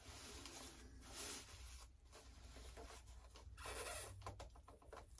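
Near silence with faint scratching and a few light clicks of hands handling foam model-plane parts.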